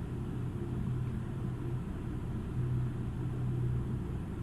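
A steady low hum and rumble of background noise, with no distinct events.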